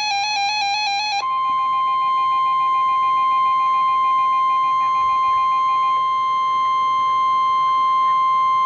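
NOAA Weather Radio Emergency Alert System alert: the last of the buzzy, warbling SAME digital header data burst, then about a second in the steady 1050 Hz weather radio warning alarm tone starts and holds as one long unbroken beep.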